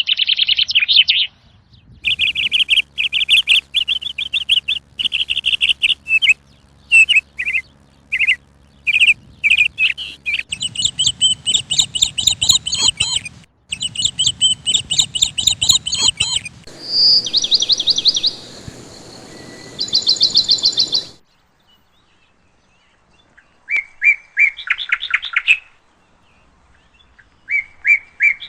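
Sparrows chirping in rapid runs of short repeated chirps, in several stretches that start and stop abruptly, with a short silent gap about three-quarters of the way through.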